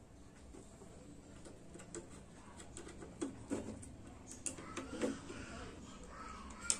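Faint clicks, taps and knocks of hands handling wires and a small circuit board inside an open power amplifier's metal chassis, a few of them louder, with a sharp click near the end.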